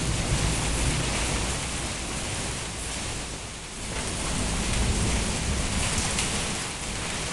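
Gusty wind rushing through broad banana and heliconia leaves and buffeting the microphone with a low rumble, the gusts easing about halfway through and building again a second later: the weather ahead of a rainstorm.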